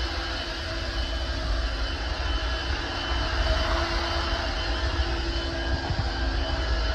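Shark Navigator Freestyle cordless stick vacuum running steadily, a continuous motor whine over a rushing of air.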